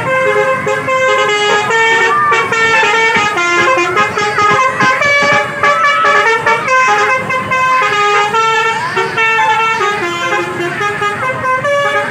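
Basuri telolet bus horn playing a fast melody of steady horn notes that step up and down in pitch.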